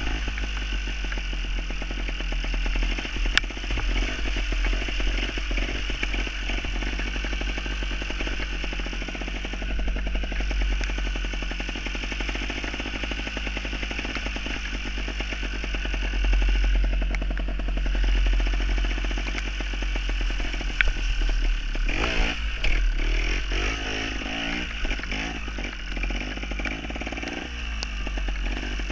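Two-stroke Gas Gas trials motorcycle engine running under way, the revs rising and falling as it is ridden, with the throttle worked harder in the last few seconds.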